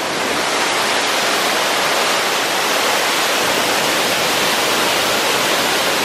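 Small waterfall on a swollen mountain stream: a loud, steady rush of falling and churning water that swells in the first moment and then holds even.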